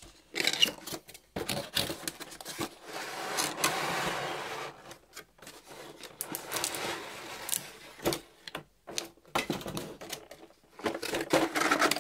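Cardboard and plastic game packaging being handled: a cardboard insert lifted out of the box and a clear plastic blister cover taken off a tray of miniatures. Irregular clicks, taps and knocks, with a stretch of sliding and rubbing about three seconds in.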